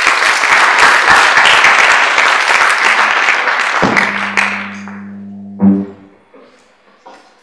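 Audience applauding, fading out after about four seconds. A low steady electrical hum from the hall's sound system then comes in, with a single thump from the microphone about halfway through.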